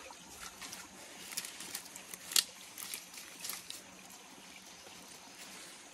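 Small stream trickling over rocks, with scattered clicks, knocks and rustles as hands move stones and dry bamboo leaves in the streambed; the sharpest knock comes about two and a half seconds in.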